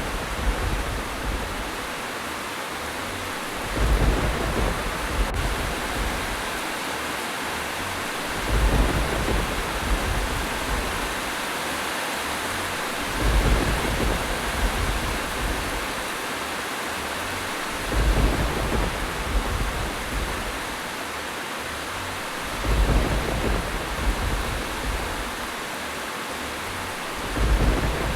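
Steady heavy rainfall with a low thunder rumble swelling up at even intervals, about every five seconds.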